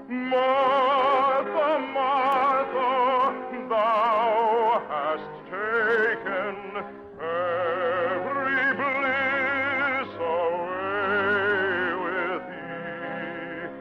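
Operatic singing with a wide vibrato over orchestral accompaniment, in sustained phrases broken by short breaths. Old radio recording with a narrow, dull top end.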